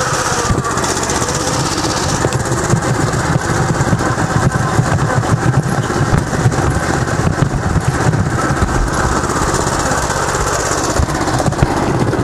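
Small tractor's engine running close up with a rapid, even pulsing as the tractor creeps along at a crawl.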